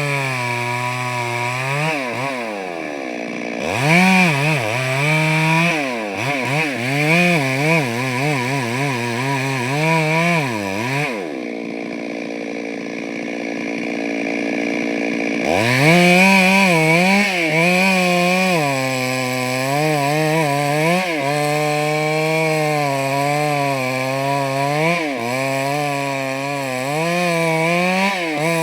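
Chainsaw engine running hard while cutting wood, its pitch dipping and rising with the load. About eleven seconds in it eases off to a lower, steadier note for a few seconds, then revs back up at about sixteen seconds and carries on cutting.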